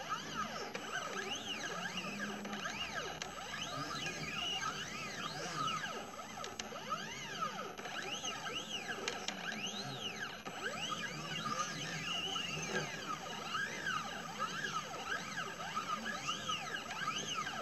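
Stepper motors of a CNC 2418 laser engraver whining in quick rising-and-falling pitches as the laser head darts through short engraving moves, over a steady hum.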